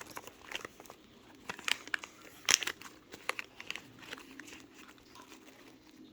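Snack packaging crinkling, with irregular crisp crackles and crunches, the loudest about two and a half seconds in.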